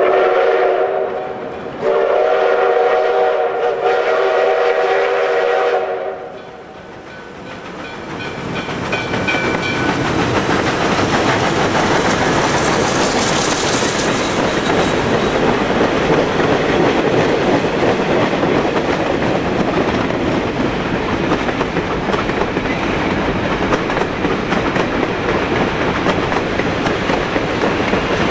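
Canadian National #3254, a 2-8-2 Mikado steam locomotive, blows its chime whistle in two blasts, the second about four seconds long. The locomotive then passes with a rising rush of steam and running noise, followed by the steady clatter of its passenger cars rolling over the rails.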